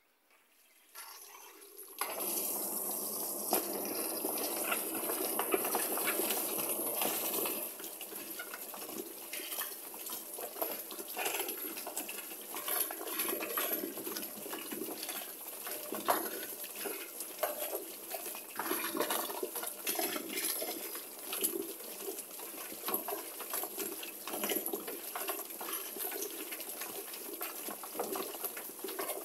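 Rotary chicken-plucking machine starting up about two seconds in: its spinning disc tumbles a wet chicken carcass against the rubber plucking fingers, a steady wet swishing with rapid irregular slaps and knocks.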